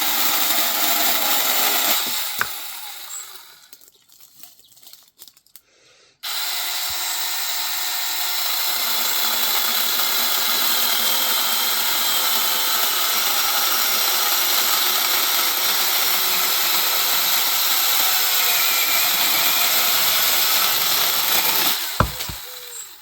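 Battery-powered mini chainsaw with a 6-inch bar cutting through a tree trunk. It runs for about two seconds and winds down. After a short pause it starts abruptly and runs steadily for about sixteen seconds, stopping near the end.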